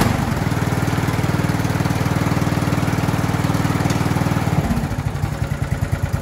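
Briggs & Stratton 15.5 hp single-cylinder overhead-valve lawn tractor engine running steadily just after starting, with a new carburetor needle valve and seat fitted. About four and a half seconds in it drops to a slower speed with more distinct firing pulses. It runs pretty good.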